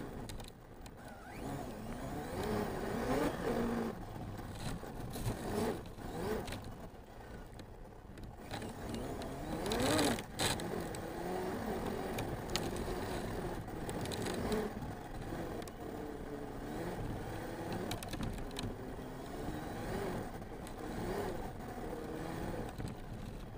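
Arrma Mojave 6S RC truck's brushless electric motor and drivetrain whining, the pitch rising and falling again and again with the throttle, over the rattle and rumble of the chassis on rough ground. About ten seconds in there is a loud knock with a quick rise in pitch.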